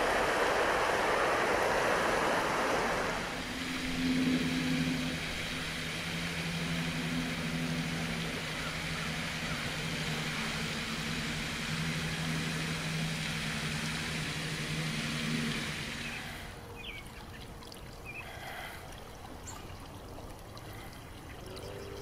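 Outdoor pond ambience: water trickling for the first three seconds or so, then a steady low engine drone for about twelve seconds. After it fades there are a few short bird chirps.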